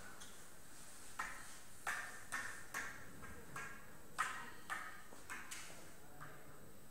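Hard billiard balls clicking against each other, about ten sharp ringing clicks at uneven intervals, the loudest about four seconds in.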